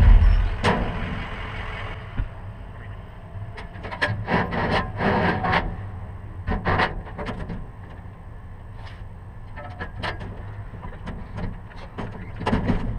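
Motor vehicle driving: a steady low engine and road hum that drops off over the first two seconds, with scattered clicks and rattles.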